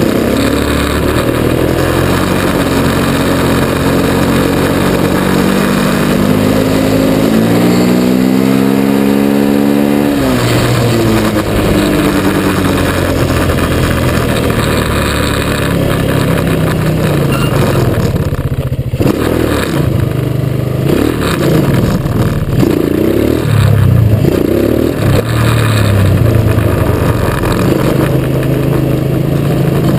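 Yamaha quad bike's engine running under throttle, its pitch climbing steadily for several seconds before dropping sharply about a third of the way in. Later the revs rise and fall repeatedly in quick swells as the throttle is worked.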